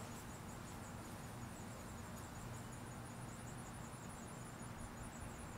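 Faint outdoor background: a steady low hum under the high, rapid pulsing chirp of insects.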